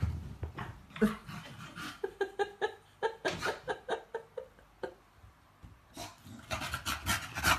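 Bulldog giving a quick series of short whines and yips, then panting hard near the end.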